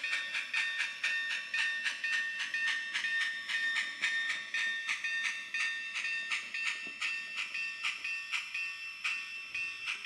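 Sound decoder of a Bachmann Spectrum 4-8-2 Mountain model steam locomotive playing rhythmic exhaust chuffs as the engine moves slowly, about four chuffs a second at first and slowing a little later on, over a steady high-pitched tone.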